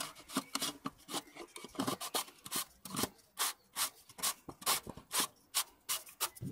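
Plastic oil filter housing cap of an Audi S3 being screwed back in by hand, its threads giving short rasping rubs about three or four times a second.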